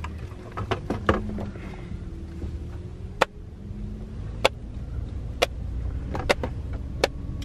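Silicone dimples of a Dimple Digit fidget toy being pressed, giving sharp single pops at irregular intervals of about a second, over a steady low rumble inside a car.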